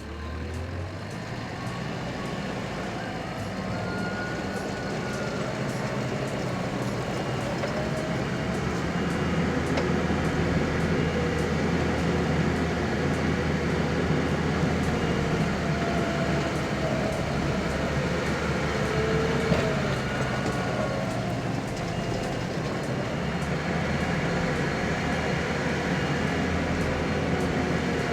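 Skid steer working dirt: its engine runs steadily, building up over the first several seconds, with whining tones that rise and fall above it.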